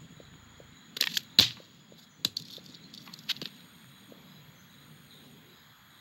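Animated-film sound effects with no dialogue or music: a few sharp clicks and knocks, the loudest pair about a second in, over faint outdoor ambience with a steady high whine.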